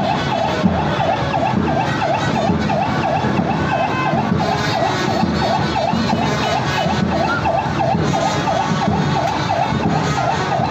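A siren sounding a fast, repeating up-and-down wail, about two and a half sweeps a second, over the steady noise of a large crowd.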